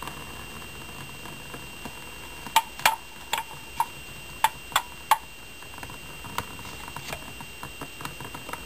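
An aluminium drink can being handled, giving a run of about seven sharp metallic clicks with a short ring, then smaller scattered ticks. A faint steady high-pitched whine runs underneath.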